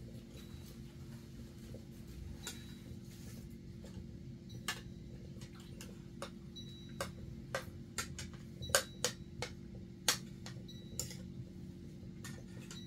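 Scattered light clicks and clinks at irregular intervals, a few with a brief high ring, over a steady low hum; the sharpest come about nine and ten seconds in.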